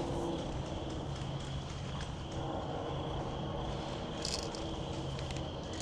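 Crickets trilling steadily in the night, over a low steady hum.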